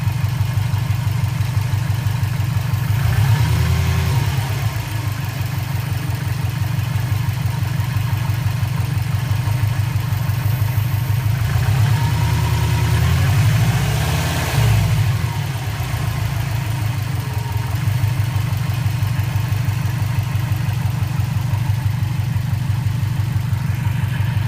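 Warm 2004 Subaru WRX's turbocharged EJ205 flat-four idling, blipped up and back down twice, briefly a few seconds in and longer about halfway through. Its rattly exhaust note comes from a cracked up-pipe flange leaking exhaust, first suspected as piston slap.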